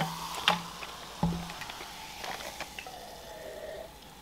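Cola poured from a bottle into a glass, with soft fizzing, a few small clicks and short low hums, then sipped from the glass near the end.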